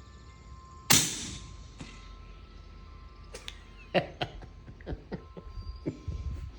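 One suppressed rifle shot from a .375 Raptor with a suppressor fitted: a single sharp crack about a second in with a short ringing tail. A fainter crack follows a second later, then scattered small clicks and knocks of handling.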